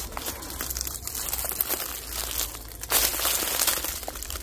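Rustling and crackling of leaves and twigs close to the microphone, a run of irregular crackles with a louder burst about three seconds in, over a low steady rumble.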